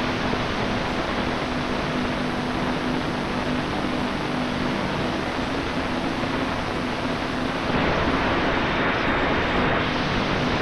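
Strong wind rushing over the onboard camera's microphone of an electric RC airplane in flight, with the faint steady hum of its electric motor and propeller underneath. The rushing grows louder about eight seconds in.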